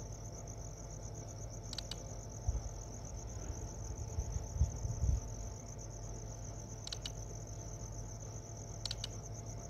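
Crickets chirping steadily in a high, finely pulsing trill, with a few soft low thumps a couple of seconds in.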